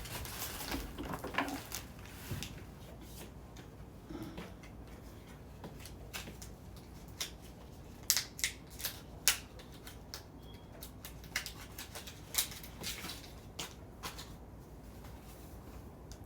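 Irregular small clicks and taps of small tools and items being handled on a work surface, with quiet gaps between them.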